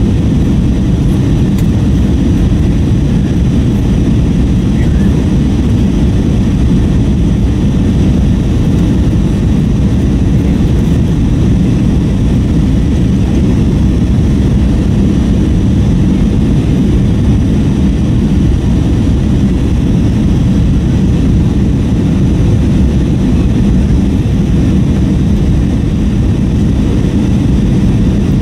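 Steady cabin noise inside an Airbus A321-232: the low roar of its IAE V2500 turbofan engines and airflow in flight, even and unbroken.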